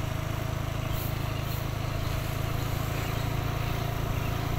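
Small motor scooter engine running steadily as the scooter rides slowly in a straight line, a constant low hum with a faint steady higher tone above it.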